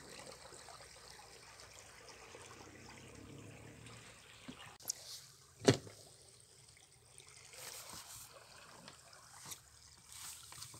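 Water trickling and lapping at the boat, with a sharp knock a little past halfway and a few smaller knocks.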